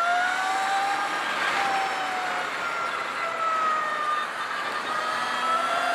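Energica Eva electric motorcycle riding along: a loud whine from its electric motor and drivetrain, rising in pitch over the first second, dipping, then rising again, over a haze of wind and road noise.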